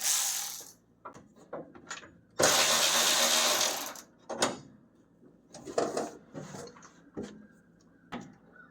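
A power tool runs in two short bursts, a brief one at the start and a longer one of about a second and a half, with scattered clicks and knocks of parts being handled afterwards.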